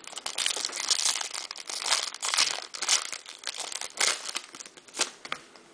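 Foil trading-card pack wrapper crinkling and tearing as it is pulled open by hand: a dense crackle, with sharper snaps about four and five seconds in, fading near the end.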